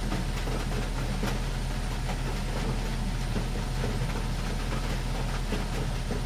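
Rain falling on a car's roof and glass, heard from inside the cabin: a steady patter with many single drops ticking sharply, over a steady low rumble.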